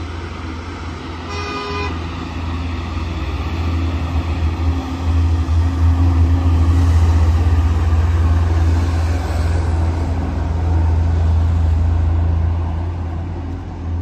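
Road traffic: a vehicle horn gives one short toot about a second in, then a heavy vehicle's low engine rumble swells past, loudest midway, and eases off near the end.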